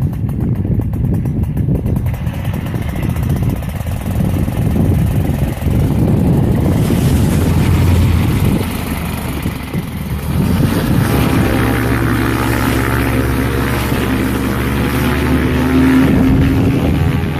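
Paramotor engine and propeller running at take-off power, with wind noise on the microphone. The first half is a dense low rumble; from about two-thirds of the way in a steady engine tone stands out, its pitch rising slightly near the end.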